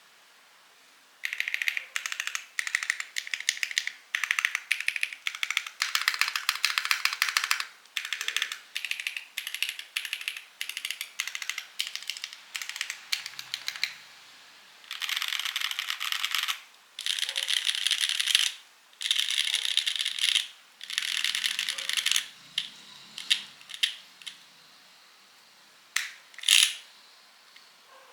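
Typing on a Mode Envoy mechanical keyboard with stock Mode Obscura linear switches, a block-mounted aluminium plate and GMK keycaps. The keystrokes come in fast runs with short pauses between them, starting about a second in, and thin out to a few single presses near the end.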